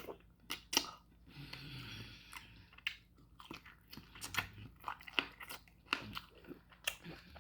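A person chewing slow-cooked beef bone marrow and meat close to the microphone, with many irregular short mouth clicks.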